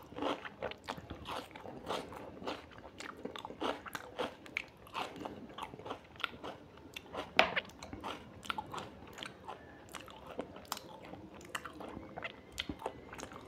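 A person chewing and biting food close to the microphone, with irregular crunches and mouth clicks several times a second and one louder crunch about halfway through.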